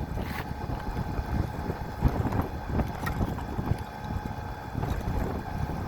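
Wind buffeting the microphone over a rooftop Bryant gas package unit running, with a faint steady hum under the gusty rumble.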